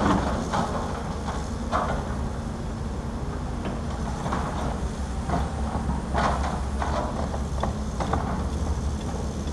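Caterpillar 320D excavator's diesel engine running steadily while it digs mud, with irregular metallic clanks and scrapes from the bucket and arm every second or two, the loudest a sharp knock at the very start.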